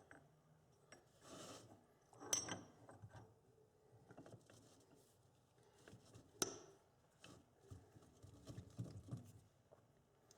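Faint clicks, taps and light scraping of metal parts being handled as the hammer mechanism of a 1-inch air impact wrench is fitted together, with two sharper clicks about two and a half and about six seconds in.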